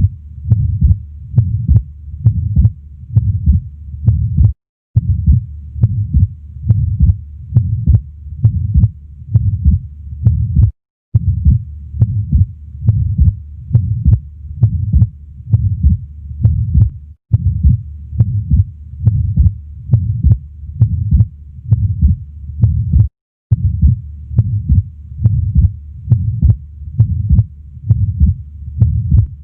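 Stethoscope recording of heart sounds at the left base (pulmonic area) in an atrial septal defect: a steady run of low heartbeats with a murmur between them. The beats break off briefly about every six seconds.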